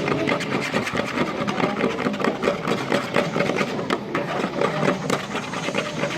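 A stirrer scraping quickly round a container of glue, liquid soap and eye drops as the mix is stirred into slime: a fast, rhythmic scraping.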